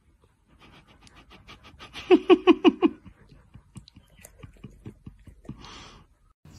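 Dog panting fast in short, even breaths about six or seven a second. The pants turn loud and voiced about two seconds in, then fade, with a breathy huff near the end.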